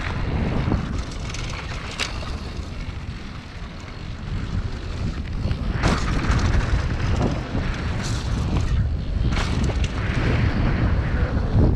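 Wind rumbling on an action-camera microphone while a mountain bike rolls fast down a gravel trail, its tyres crunching over loose stones. Several sharp clacks come through as the bike rattles over bumps.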